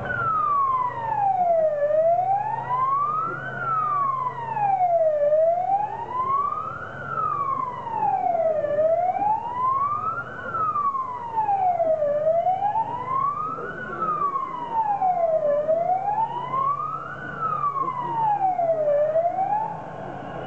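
Wailing siren sweeping slowly up and down in pitch, about six rises and falls of roughly three and a half seconds each, played loud over a concert PA. It stops about a second before the end.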